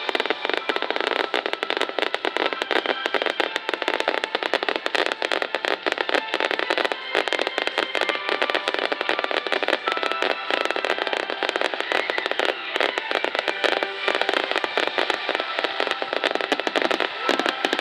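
Starmine aerial fireworks bursting in a dense, continuous rapid crackle of many small reports.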